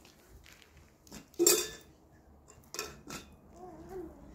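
A few short knocks and clinks of household objects being handled, the loudest about a second and a half in.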